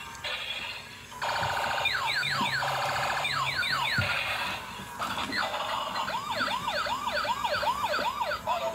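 Bump-and-go transforming police car toy playing electronic sound effects through its small built-in speaker. A buzzing tone comes with quick downward zaps, and about five seconds in a rapid up-and-down siren wail starts.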